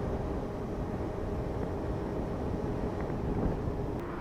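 Yamaha FZS V3 motorcycle riding on a highway: steady wind rush on the rider's microphone over the bike's low, even running note.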